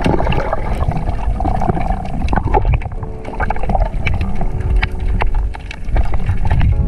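Underwater sound: a low churning rumble of moving water with many scattered sharp clicks.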